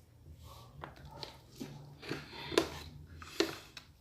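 Scattered sharp taps and clicks of a utensil against a bowl while slime of cornstarch, liquid soap and toothpaste is stirred, with faint breathing and voice sounds.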